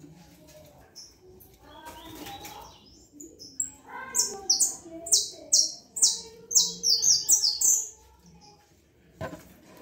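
Saffron finch singing a quick run of high, downward-slurred chirps for about four seconds in the middle, with a soft knock near the end.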